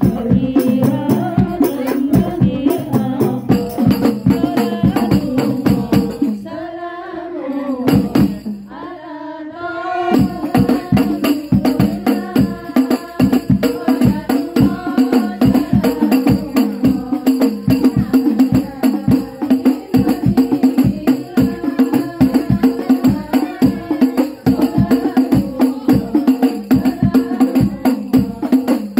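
A religious song performed by a group on hand frame drums and tambourines (rebana) with singing, the drums beating a fast, even rhythm. About a quarter of the way in, the drums stop for a few seconds while a voice carries a wavering line alone, then they come back in.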